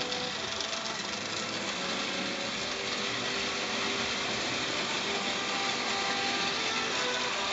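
Lionel tinplate electric toy train running on three-rail track: a steady whirring of its electric motor and wheels on the tin rails.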